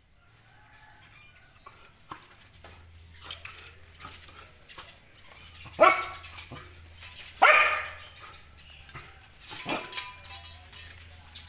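Dog barking in short, sharp barks while confronting a snake: two loud barks about halfway through, then a couple of weaker ones near the end.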